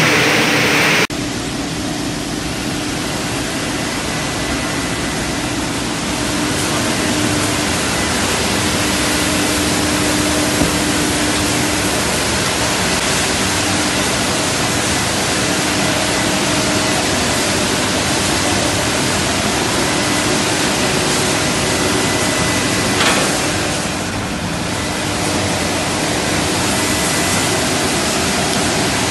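Plastic agglomerator plant running: a loud, steady rushing noise with faint steady hums, and one brief sharp sound a little past three-quarters of the way through.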